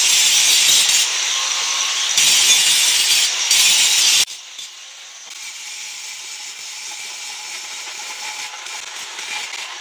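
Electric angle grinder with an abrasive disc grinding down a weld on a steel motorbike footrest, a loud steady grinding hiss. A little over four seconds in it drops suddenly to a much quieter steady run.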